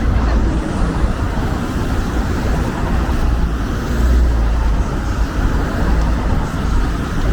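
City street noise: a steady wash of road traffic with a deep, uneven low rumble.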